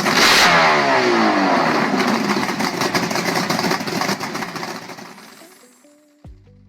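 An engine revving hard, then its pitch dropping away as it winds down and fades out over several seconds. A few short musical notes come in near the end.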